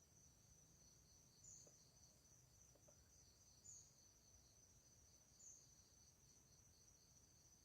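Faint, steady high-pitched insect chirring that pulses rapidly, with a slightly louder chirp about every two seconds.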